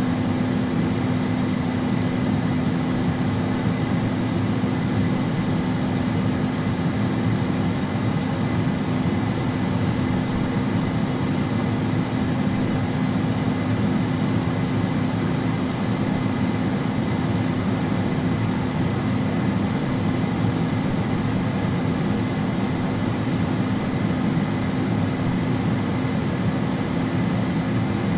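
Air fryer running: a steady rush of air from its fan with a constant low hum underneath, unchanging throughout.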